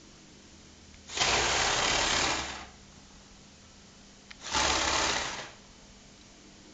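Electric motors and plastic gearing of a Lego Technic 8275 remote-control bulldozer whirring in two bursts, one about a second and a half long and a second about a second long, with a pause of two seconds between them.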